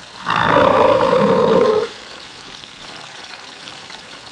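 An alligator roars once, a loud rough call of about a second and a half starting just after the beginning, followed by a quiet steady background.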